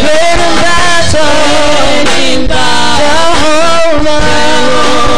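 Gospel worship song: a wavering sung melody over loud band accompaniment with a steady low beat.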